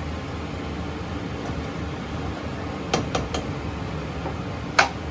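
Pork stir-fry cooking in a pan over a high flame: a steady low rushing noise, with three quick clinks of a utensil against the pan about three seconds in and a louder clink near the end.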